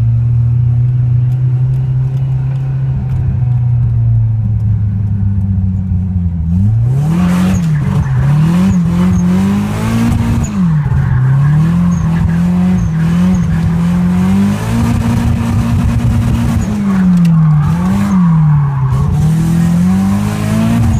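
Nissan 240SX S13's engine heard from inside the car, running at a steady pitch at first, then from about six and a half seconds in revving up and down again and again as the car is drifted, with tyre noise rising over it.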